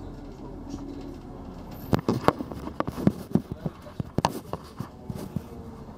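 Steady low rumble of a moving vehicle heard from inside the cabin, with a run of sharp knocks and rattles from about two to five seconds in.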